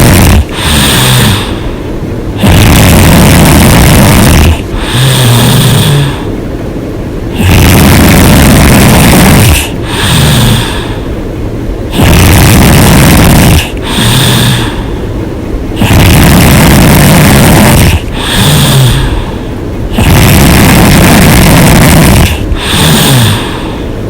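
A woman snoring loud and hard: a loud rasping snore about every four and a half seconds, five in all. Each is followed by a softer, lower-pitched breath out and a brief pause.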